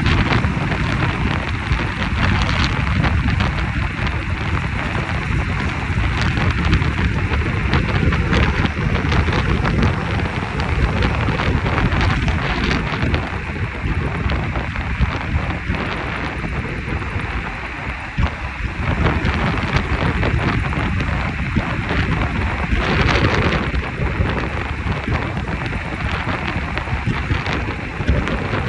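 Wind buffeting the microphone: a steady rushing rumble with crackle.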